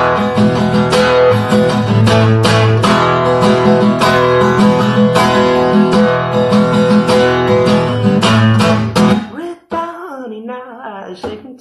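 Acoustic guitar strummed in a steady rhythm, full chords ringing, with no singing over it. About nine seconds in the strumming stops and a quieter voice follows.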